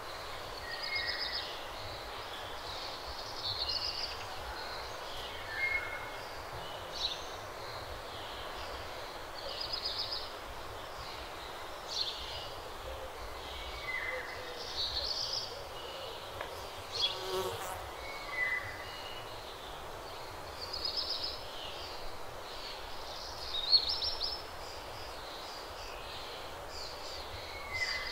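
Outdoor ambience with small birds chirping: short, high notes repeated every second or two, with the odd falling whistle, over a steady background hiss.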